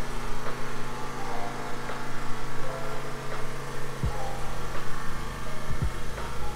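Background music: a mellow electronic track with held notes over a bass line, with soft kick-drum thumps coming in about four seconds in.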